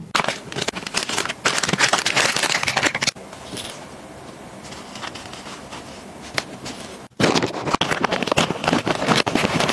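Plastic packaging crinkling and crackling as hands handle it, with a quieter rustle from about three to seven seconds in. After an abrupt break, a plastic diaper pack crinkles loudly as it is opened and emptied.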